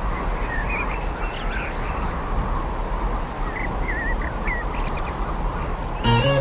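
Outdoor ambience: a steady hiss with birds chirping now and then in short, wavering twitters. Music comes back in near the end.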